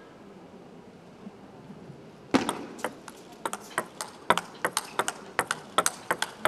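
Table tennis rally: the ball clicking sharply off the rubber bats and the table in a quick, uneven run of ticks, about four a second. It starts a couple of seconds in, after a quiet pause before the serve.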